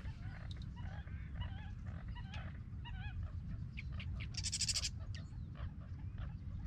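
Golden retriever whining in short, wavering cries, eager and restless while held on a stay. Low wind rumble on the microphone throughout, and a short high buzzing rattle about four and a half seconds in.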